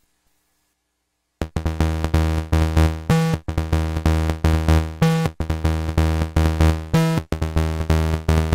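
Modular synthesizer voice heard through the Noise Reap Anomaly filter's bandpass ("bad") output with resonance at zero, acting more or less like a normal bandpass. After about a second and a half of silence, a fast repeating sequence of short, bass-heavy synth notes starts and keeps going.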